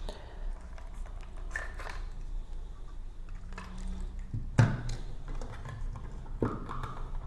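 Handling sounds from a Schlage keyless door lock: scattered light clicks and taps, with one louder knock a little past halfway.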